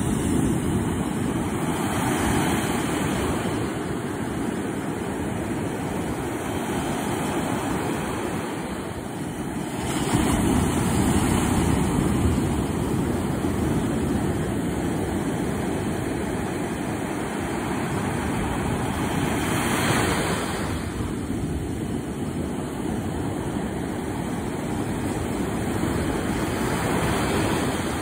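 Ocean surf breaking on a sandy beach and washing up the shore: a continuous rush of water that swells louder each time a wave breaks, roughly every eight to ten seconds.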